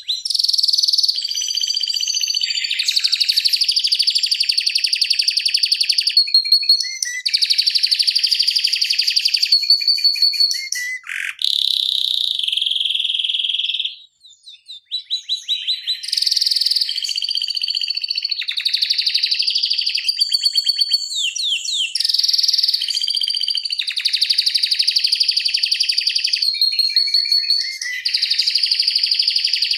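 Domestic canary singing a long, near-continuous song of rapid rolling trills ('ngeroll'), one fast-repeated phrase running straight into the next, with a brief break about halfway through.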